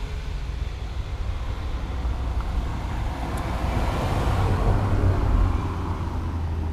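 A motor vehicle passing by, its noise swelling to a peak about two-thirds of the way through and then fading, over a steady low rumble.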